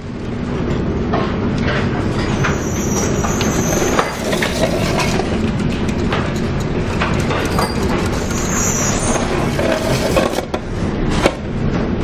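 Steady low rumble of a cargo ship under way in a heavy storm, with a faint steady hum and wind buffeting the microphone. Frequent knocks and rattles run through it, the loudest about four seconds in and again near the end.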